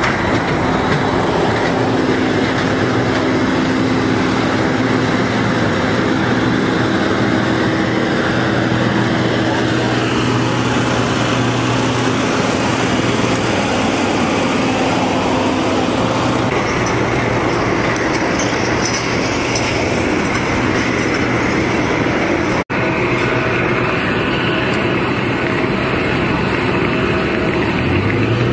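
Steady loud roar and hum of jet airliners and ground-support vehicles running on an airport apron, with a momentary dropout near the end.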